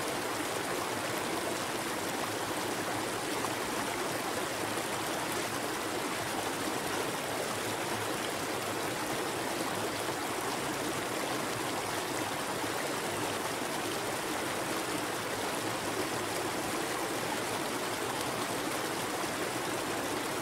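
Steady rushing water of a small waterfall and river: an even, unbroken hiss with no changes.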